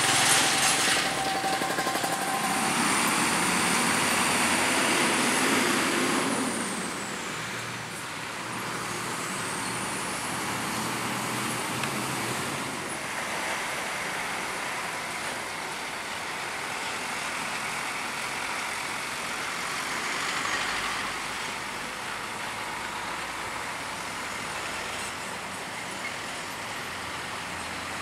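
Heavy diesel trucks, among them a Hino 500 tanker, passing at low speed: engine and tyre noise, with a loud burst of hiss at the start. After about six seconds the sound settles to a steadier, quieter traffic noise.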